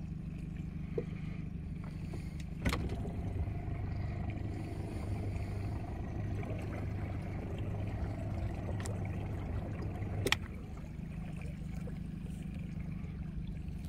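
Small boat's engine idling steadily, a low hum, with a few sharp clicks, the loudest about two and a half seconds in and again about ten seconds in.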